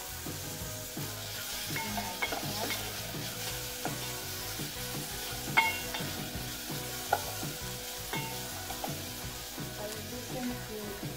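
Sliced onions sizzling in a little water and oil in a metal sufuria on a gas burner, stirred with a wooden spoon. The spoon knocks sharply against the ringing metal pot several times, loudest about five and a half seconds in.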